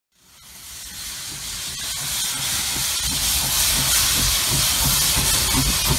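Steam locomotive passing close below, its steam and exhaust hissing and growing louder after fading in. A low, pulsing rumble from the engine joins about halfway through.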